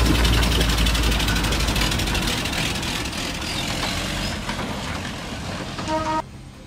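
The engine of a 1960 Dodge D100 pickup truck running as the truck drives, with a deep rumble that eases off after about two seconds and then slowly fades. The sound cuts off suddenly near the end.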